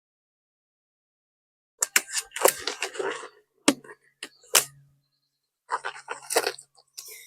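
Sharp metallic clicks, clinks and scraping in several bursts, starting about two seconds in, from the piston rod assembly of a mini excavator's hydraulic cylinder being slid out of its barrel.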